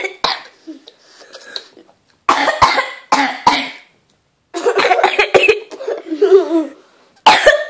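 A young girl coughing in several bouts: sharp coughs starting about two seconds in, a longer run in the middle and a last cough near the end.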